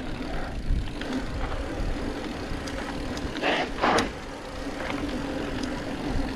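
Mountain bike riding over a dirt trail: rumble and rattle of tyres and bike over rough ground, with a steady low hum and scattered clicks, and a louder rush of noise a little past halfway.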